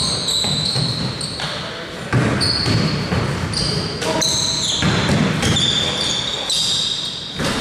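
Basketball game play in a large gym: the ball bouncing, sneakers giving many short high squeaks on the court floor, and voices echoing in the hall.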